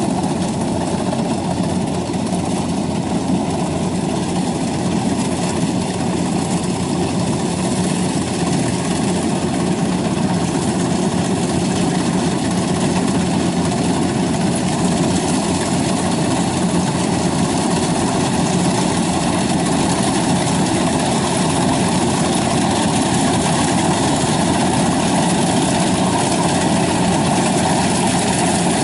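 Kubota combine harvester running steadily as it cuts and threshes ripe rice, its engine and threshing works a continuous drone that grows a little louder as the machine comes closer.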